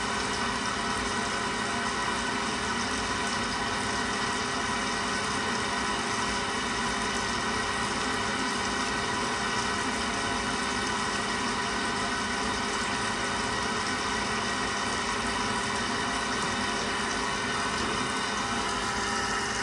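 Worcester combi boiler running steadily while hot water is drawn: a continuous mechanical hum with several steady tones and no change in pitch or level.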